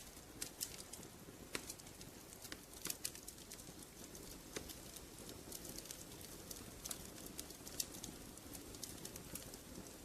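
Wood fire crackling in a fireplace: quiet, irregular sharp snaps and pops, a few every second, over a soft steady rustle of the flames.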